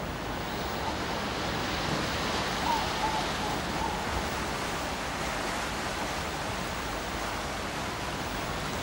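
Steady rushing of sea waves and wind, an even noise without a beat, with a few faint short tones about three seconds in.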